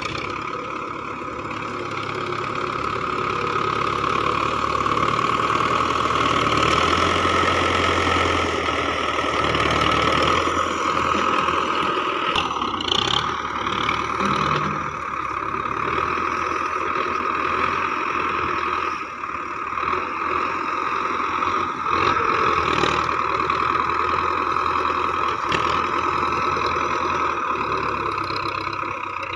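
Belarus tractor's diesel engine running under load as its front loader digs into and lifts heaps of straw and husk. The engine note swells and eases with the work, with a few short knocks from the loader about halfway through.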